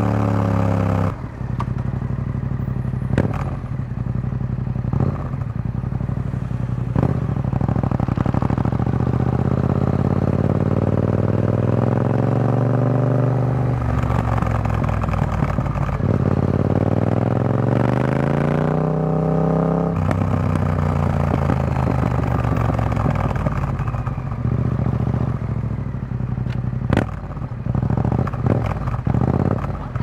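Yamaha XSR700's parallel-twin engine running through an Akrapovic carbon full exhaust with the dB killer fitted, heard under way. The engine note drops and breaks about a second in, then climbs steadily in pitch around the middle as the bike accelerates, and a run of sharp exhaust pops comes near the end.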